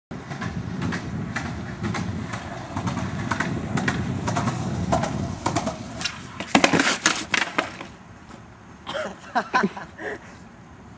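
Skateboard wheels rolling on asphalt with a steady low rumble and small clicks, then a burst of loud clattering impacts about six and a half seconds in as the board and skater hit the ground in a bail.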